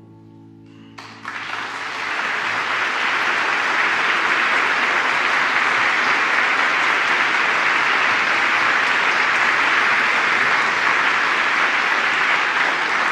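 Audience applause breaking out about a second in as the last sustained chord of the piece dies away, quickly swelling and then holding steady.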